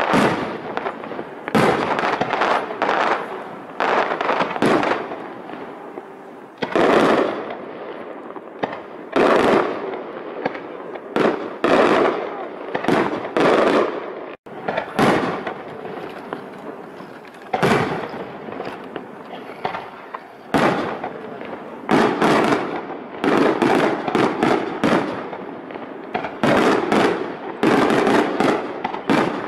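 Aerial fireworks bursting, an irregular run of sharp bangs that each trail off in echo, some coming in quick clusters. The sound drops out for an instant about halfway through.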